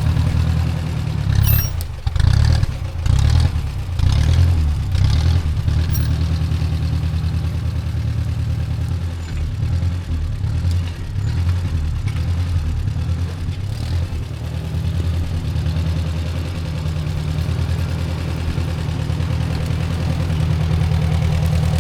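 Ford Jubilee tractor's four-cylinder gasoline engine running while it pulls a plow through potato rows. Its level rises and falls with a few clattering clicks in the first six seconds, then it settles into a steady run.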